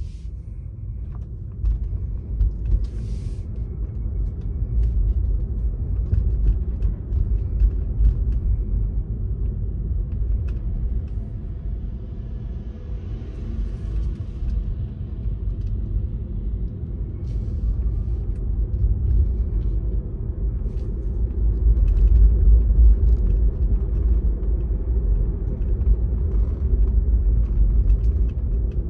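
Car driving slowly, heard from inside the cabin: a steady low road and engine rumble with occasional faint clicks and knocks.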